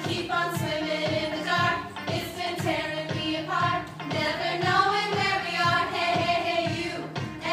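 A song: singing over music with a steady beat of about two strokes a second.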